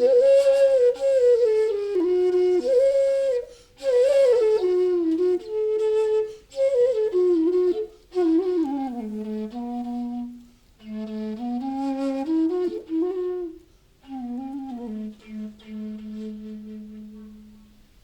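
Bansuri (bamboo transverse flute) played solo: a slow melody in short breathed phrases with gliding bends between notes, settling onto a long held low note that fades away near the end.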